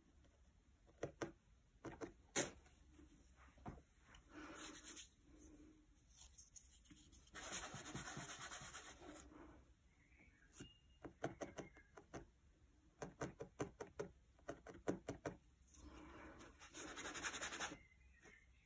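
Felting needle jabbing repeatedly through wool into a foam pad: bursts of quick, faint clicks. Between them come a few short stretches of soft rustling as tufts of wool fibre are handled and rubbed into place.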